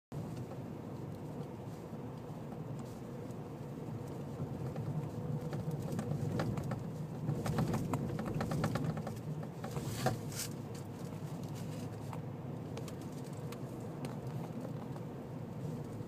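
Car driving on packed beach sand, heard from inside the cabin: a steady low rumble with scattered ticks and patter, thickest about six to ten seconds in, and one sharper tick about ten seconds in.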